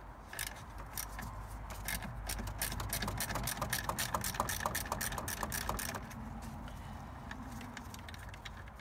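A 3/8-inch ratchet with a 10 mm socket clicking rapidly and rhythmically as it undoes the nut on a car battery's terminal clamp. The clicking thins out about six seconds in as the nut comes loose.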